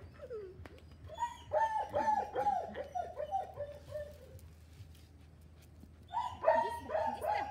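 Miniature pinscher barking in two quick runs of short, high yaps, the first starting about a second in and lasting about three seconds, the second starting near the end.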